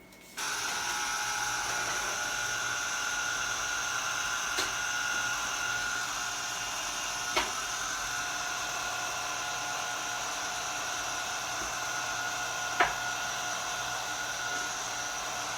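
Electric citrus juicer's small motor whirring steadily with a high whine as a lemon half is pressed onto the spinning reamer. Three short clicks sound over it, and it starts about half a second in and cuts off near the end.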